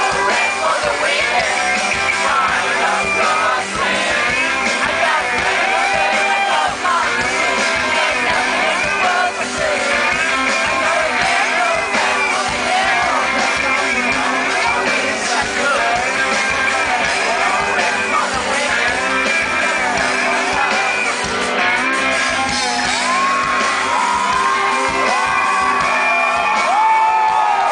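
Rock band playing live with a male lead vocal, recorded from within the crowd, with shouts from the audience. The sound is loud and thin, with little bass.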